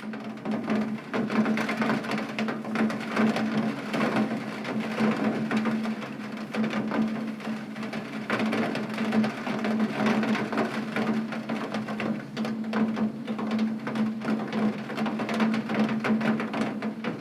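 Heavy rain hitting a window: a dense spatter of separate drop ticks over a steady low hum.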